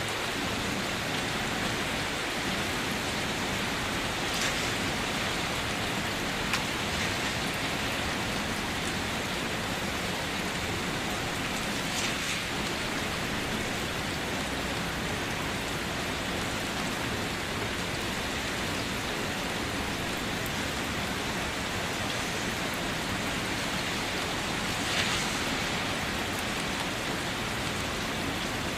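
Steady rain falling, a continuous even patter with a few louder drops now and then.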